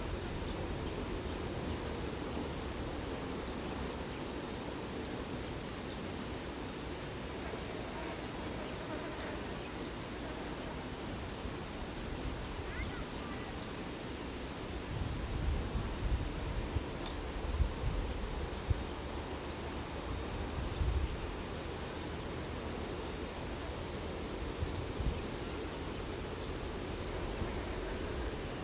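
An insect, likely a cricket, chirping steadily in a high, evenly spaced rhythm, over faint low rumble from wind on the microphone in the middle.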